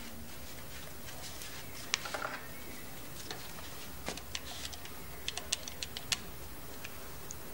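Buttons on a cordless phone handset clicking as a number is dialled: a string of short, light, irregularly spaced clicks, most of them in the second half.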